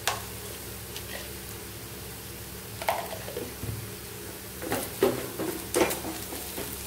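A few knocks and scrapes of a spatula against a metal pan of onions and spice powder, with stirring starting about five seconds in, over a faint steady hum.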